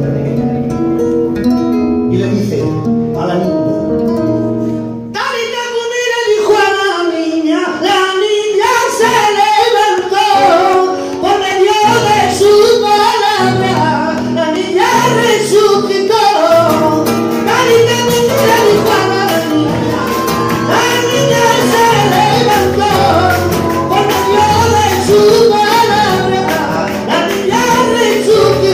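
A man singing to his own acoustic guitar strumming. The guitar plays alone for about the first five seconds, then the voice comes in and carries on over the strumming.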